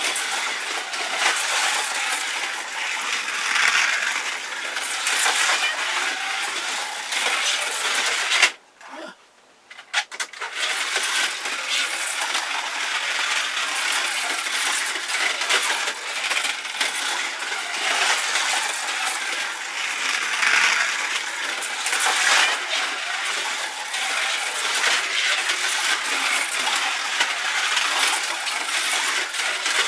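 Slot cars running on a plastic track: the steady rattling whir of small electric motors and pickup braids on the rails, swelling and fading as the cars come and go. The sound cuts out for about two seconds around nine seconds in, then resumes.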